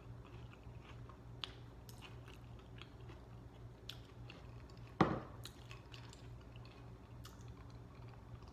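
Close-up chewing of a sub sandwich: soft, wet mouth clicks over a steady low hum, with one sharp thump about five seconds in.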